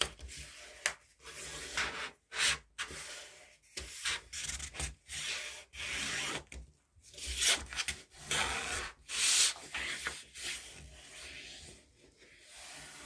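Sheet of coloured paper rustling and rubbing as hands fold it in half lengthwise and run along the fold to crease it, in a string of irregular rubbing strokes.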